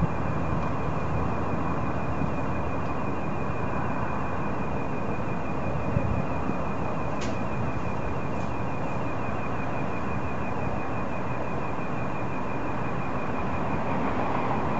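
An unidentified pulsating noise: a steady rushing hiss carrying a high tone that pulses rapidly and evenly the whole time.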